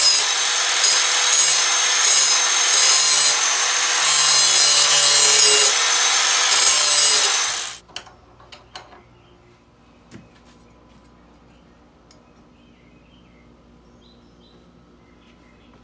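Angle grinder grinding the edge of a steel lawn mower blade held in a vise. The grinding is loud and steady for about seven and a half seconds, then cuts off suddenly. A few light knocks follow, then a quiet background with faint bird chirps.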